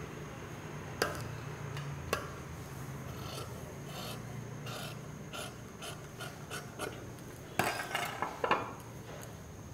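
Tailor's shears snipping through fabric along a curved line: a run of short cuts, several a second, with a few sharper clicks of the blades closing.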